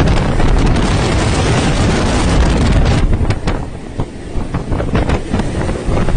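Storm wind buffeting the microphone over a rough sea, a loud rushing for about three seconds that then eases into gusty crackling.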